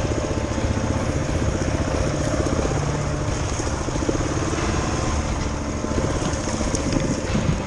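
Adventure motorcycle engine running at low speed, heard from on the bike while it rides a rough woodland trail, with a steady fast pulsing.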